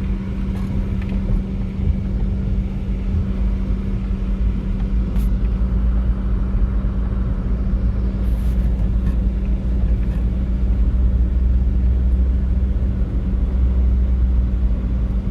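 Vehicle driving: a steady engine hum over a low road rumble that grows heavier about a third of the way in, with a few faint rattles.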